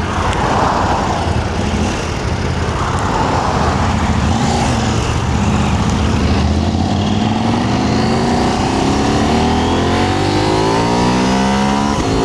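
KTM 790 Adventure R's parallel-twin engine running at low revs, then revs climbing steadily through the last few seconds as the bike pulls away.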